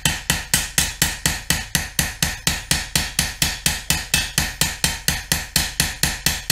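Ball peen hammer striking the edge of a hand-forged sickle blade on a peening anvil made from an old sledgehammer head: a steady, quick run of light blows, about five a second, each with a short metallic ring. The blows are peening, thinning the cutting edge and drawing metal out to it before honing.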